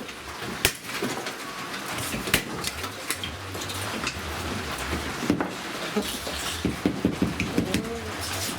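Scattered light clicks and clatter of broken plastic pieces being handled, over a low steady hum.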